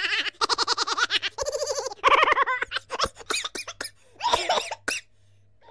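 A person laughing: a quick run of rhythmic 'ha-ha' pulses in the first second or so, then more laughing and voice sounds broken by short pauses.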